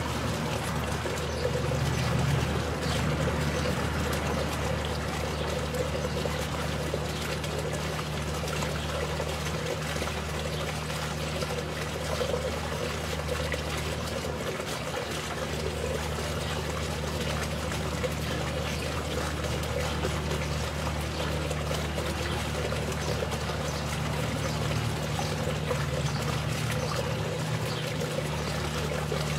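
Small garden pond fountain splashing and trickling steadily, with a low steady hum underneath.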